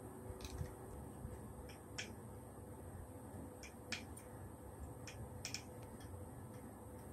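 Faint, irregular clicks and taps from handling a wired earphone's cable and inline microphone while clipping it onto a makeshift stick stand, heard close through that same microphone. A faint steady hum lies underneath.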